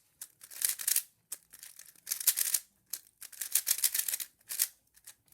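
Qiyi Thunderclap V3 M magnetic 3x3 speedcube being turned fast: runs of rapid clicking turns with short pauses between them.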